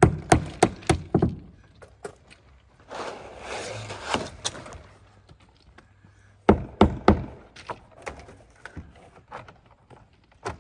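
Sharp knocks of work on vinyl siding: a quick run of about six in the first second and a half, then a rough scraping noise for a second or so, then another quick run of about four knocks about six and a half seconds in, with lighter taps after.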